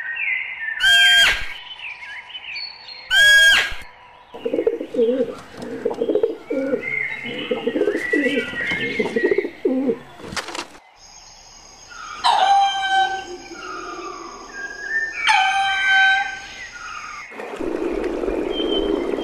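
A string of bird calls: two loud cries about two seconds apart, then several seconds of low, pulsing cooing, then two more loud cries with a steady high whistle-like tone behind them. A steady hiss takes over near the end.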